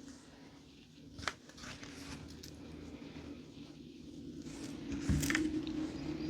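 Faint handling noises of crafting materials being worked by hand, with a sharp click about a second in and a few more clicks near the end, over a steady low hum.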